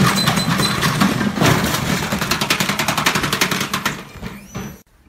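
Tricity Bendix 1000 washing machine at high speed, its drum banging violently in rapid, quickening knocks over a steady motor hum, the sound of a machine shaking itself apart. The racket cuts off suddenly near the end.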